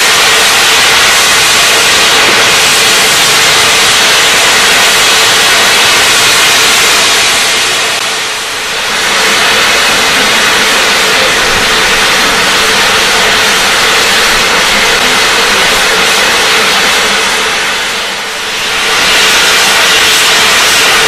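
SR Merchant Navy Class 4-6-2 steam locomotive 35018 letting off steam in a loud, steady hiss that dips briefly twice, about ten seconds apart.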